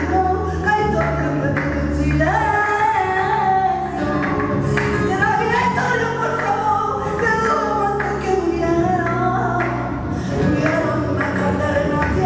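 Flamenco song: a singer's voice slides and bends between notes over steady low accompaniment.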